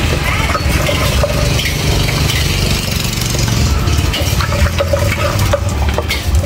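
Wooden pestle pounding and stirring in a large clay mortar: repeated knocks and clinks of wood and a spoon against the pot, over a steady low rumble.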